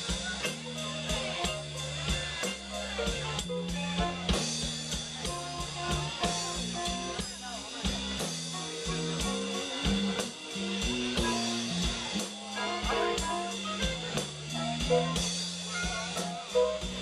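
Live blues band playing an instrumental passage: electric guitar over a drum kit with a steady beat and a keyboard.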